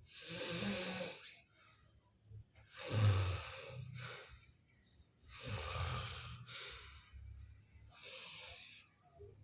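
Loud snoring from a sleeper: four noisy, rasping breaths about two and a half seconds apart, each with a low rattle.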